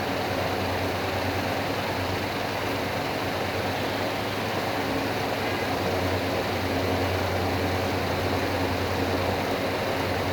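Electric fan running steadily: a constant rush of air over a low, even motor hum.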